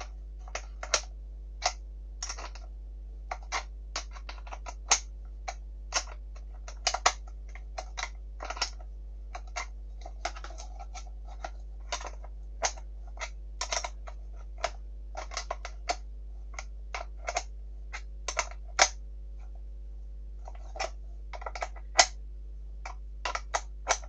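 A small spanner clicking on a metal nut and bolt in irregular sharp clicks, roughly one or two a second, as the nut is tightened on a steel bolt that replaces the vacuum cleaner brush's broken plastic wheel pin. A low steady hum runs underneath.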